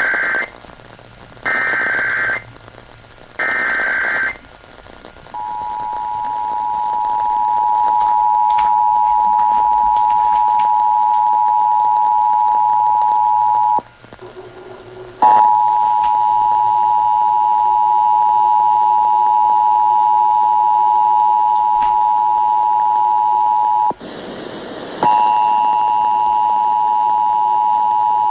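Emergency Alert System broadcast: three one-second bursts of warbling digital header data, then the two-tone EAS attention signal (853 and 960 Hz). The attention signal fades up and holds a steady, loud beep. It breaks off about 14 s in and again about 24 s in, each time starting again after a second or so.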